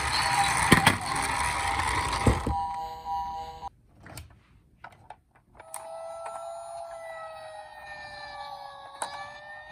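Toy emergency-vehicle minicars: a loud rolling noise with a steady electronic tone and a couple of knocks stops about two and a half seconds in, a few small clicks follow, and from about six seconds in a toy's electronic siren sounds, a slow wail that drifts down and then rises again near the end.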